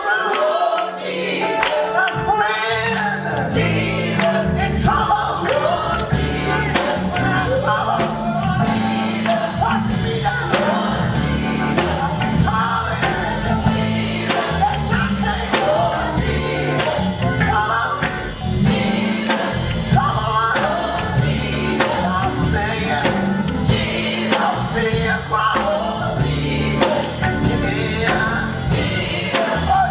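Recorded gospel song: group vocals singing over a band, with the bass coming in about a second in and a steady drum beat.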